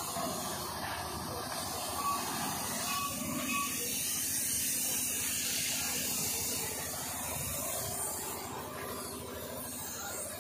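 Compressed-air spray gun hissing steadily as it sprays paint onto a jeep body panel.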